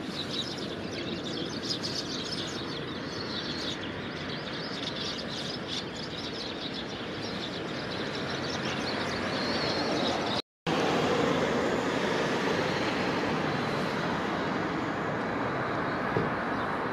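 Eurasian tree sparrows chirping in quick short calls over steady road traffic noise. The traffic swells and, after a brief dropout about ten seconds in, a passing vehicle's noise takes over and the chirping fades.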